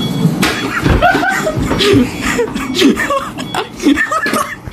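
Young men laughing and talking indistinctly, with a low thump about a second in.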